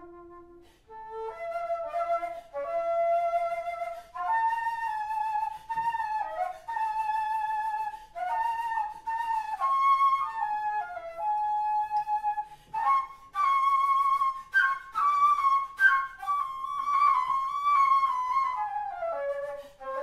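Alto flute playing an unaccompanied melody: a quiet low note at first, then climbing phrases of held and quick notes, sharply accented attacks in the middle and a falling slide near the end.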